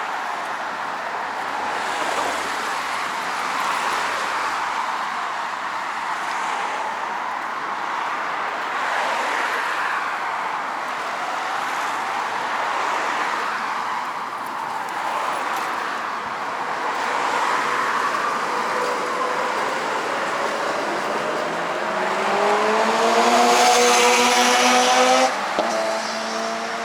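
Quadcopter drone's propellers whining, the pitch wavering as it manoeuvres. Near the end the whine rises steeply and gets louder for a few seconds, then cuts off suddenly.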